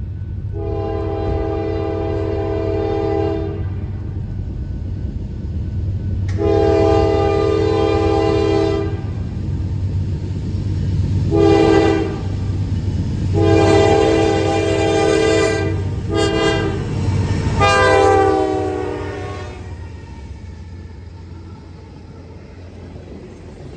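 Norfolk Southern diesel freight locomotive's air horn sounding the grade-crossing signal: two long blasts, a short one, then a final long one, slightly broken, whose pitch drops as the locomotive passes. A steady low rumble of the train runs underneath, and after the horn stops the quieter rumble of passing freight cars remains.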